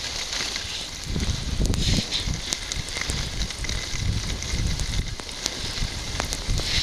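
Skis hissing and scraping over snow during a downhill run, with a crackle of small clicks and gusts of wind buffeting the microphone.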